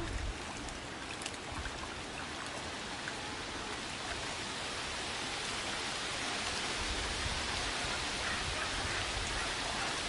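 Steady rushing of flowing stream water. Low rumbling wind on the microphone comes in during the last few seconds.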